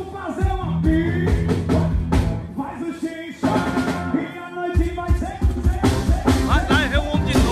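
Band music with a singer over a steady drum beat, with a short lull about three seconds in.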